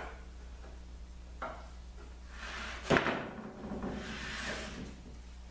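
A notched plastic epoxy scraper working across epoxy-coated white ash boards: two short scrapes, then a sharp knock about three seconds in, the loudest sound, with about two seconds of scraping around it.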